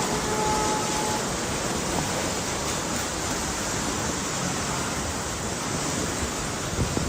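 Typhoon wind and heavy rain: a steady rushing noise.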